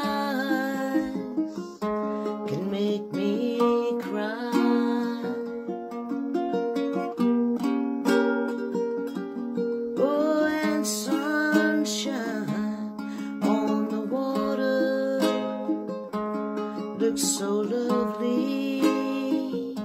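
A woman singing slowly to her own ukulele accompaniment. The ukulele is strung with Aquila Reds strings.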